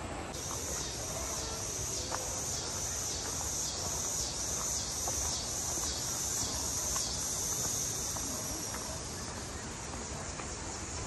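A chorus of cicadas buzzing high in a steady rhythm, about two pulses a second, fading near the end. Underneath runs a steady low rushing noise.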